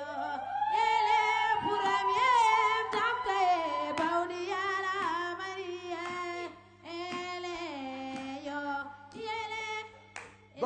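A woman singing in the Senegalese griot style, holding long notes that slide and waver in pitch, with short breaks between phrases.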